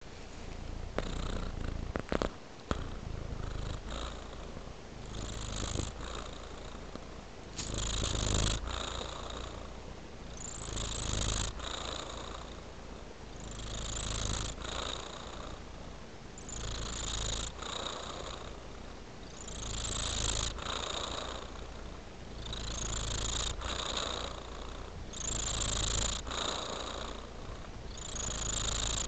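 Sleeping tabby-and-white cat purring, the purr swelling with each slow breath about every three seconds. A few faint clicks about two seconds in.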